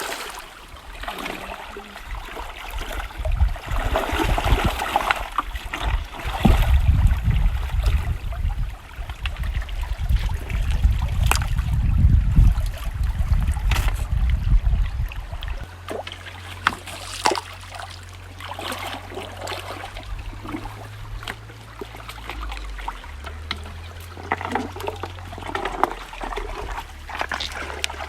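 Shallow river water trickling and splashing, with scattered small sharp splashes. A heavy low rumble lies under it for roughly the first half.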